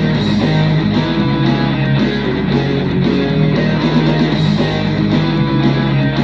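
Music: a guitar-led track with a steady beat.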